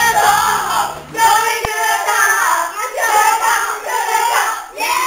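A group of children singing loudly together in sung phrases, with one sharp click about one and a half seconds in.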